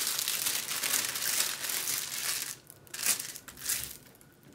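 Clear plastic protective film crinkling as it is peeled back off a diamond painting canvas and bunched in the hand. It crinkles steadily for about two and a half seconds, then gives a couple of brief rustles and fades near the end.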